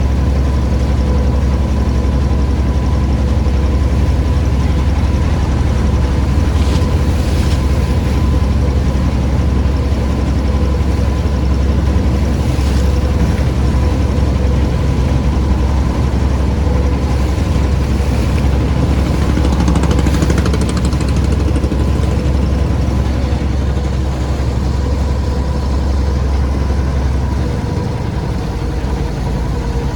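A motor running steadily at one constant pitch, over a heavy low rumble.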